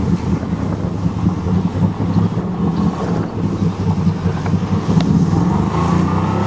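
1988 Chevrolet pickup's engine running steadily under load as the truck drives into deep water, with the engine note rising slightly near the end.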